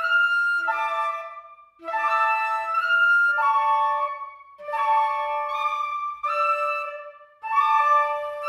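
Background music: a solo flute playing a slow melody of held notes in short phrases, with brief pauses between them.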